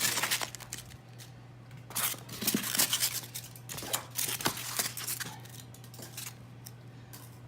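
Styrofoam packing and wrapping being pulled out of a cardboard guitar box and handled: irregular rustling, scraping and crinkling in bursts, busiest about two to three seconds in.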